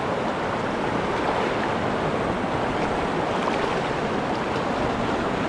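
Shallow, fast river rushing over rocks around a small inflatable boat: a steady, even rush of moving water.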